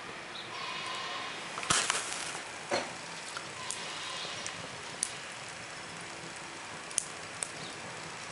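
Wood fire burning in the feed tube of a mud-built rocket stove: a steady hiss broken by sharp crackles and pops, the loudest cluster about two seconds in and single pops every second or two after.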